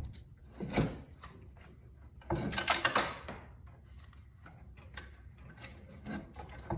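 Metal clunks and clatter from fitting and bolting a C5 Corvette's ABS pump onto its bracket: a knock about a second in, a burst of clattering with a brief high ring around three seconds in, then light ticking.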